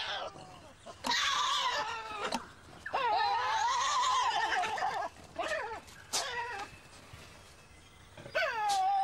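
Tasmanian devils screeching: a series of wavering, high-pitched calls. The longest runs from about three to five seconds in, there are two short ones after it, and another starts near the end.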